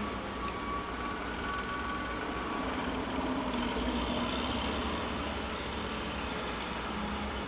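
Heavy equipment at a mulching yard running with a steady low rumble, with a faint thin tone in the first couple of seconds.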